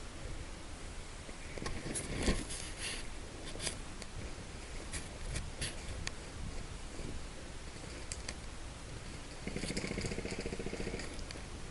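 Scattered sharp clicks and rattles over a steady low rumble, with a short humming tone about ten seconds in.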